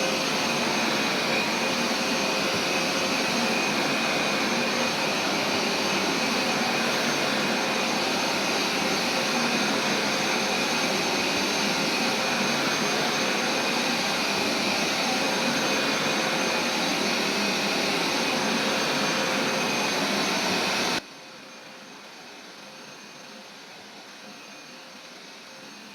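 Carpet steam cleaner's motor running steadily with a constant whine. It cuts off suddenly about 21 seconds in, leaving a much quieter steady hum.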